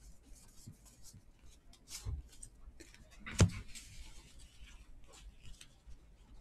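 Baseball trading cards being handled and laid onto a pile on a table mat: soft rustling and light clicks of card stock, with one sharper tap about halfway through.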